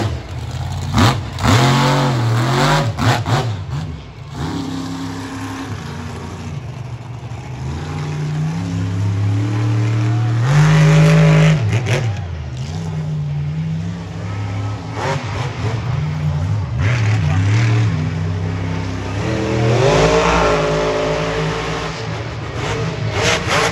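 Monster truck engine revving hard and dropping back again and again, with the hardest rev about ten seconds in and another near the end. A few sharp knocks come in the first few seconds.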